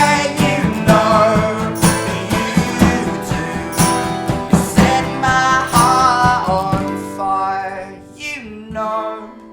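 Acoustic band playing the closing bars of a song: strummed acoustic guitar with sustained sung notes. About seven seconds in the strumming stops and a few softer plucked notes fade out.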